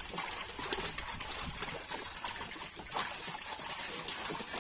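Many tilapia thrashing in a crowded seine net: a dense, wet flapping and splashing with scattered sharper slaps.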